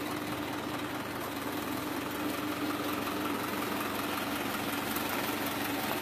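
An engine idling steadily, a constant low hum.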